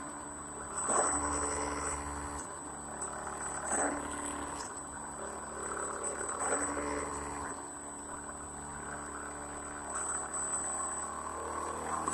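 The remote-control boat's RC airplane motor and propeller running. Its hum steps up and down in pitch several times as the throttle changes, over a thin steady high whine.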